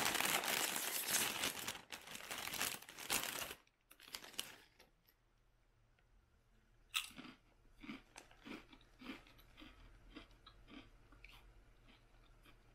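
Crinkly chip bag rustling loudly for the first few seconds. About seven seconds in a ridged potato chip is bitten with a sharp crack, followed by a string of short chewing crunches.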